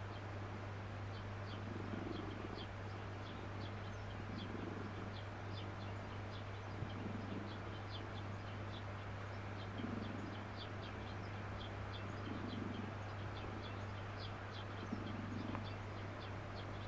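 Domestic cat purring in slow, even cycles, a soft swell about every two and a half seconds, over a steady low hum, with faint high chirps throughout.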